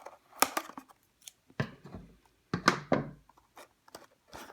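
Scissors cutting open the cable's packaging: a few sharp snips about a second apart, with light rustling between them.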